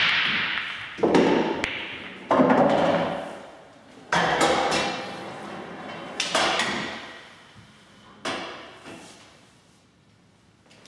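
Pool balls after a break-off shot knocking into the pockets and running away inside the table. There are about five sharp knocks a second or two apart, each trailing off over a second or more, and they go on after the balls on the cloth have come to rest.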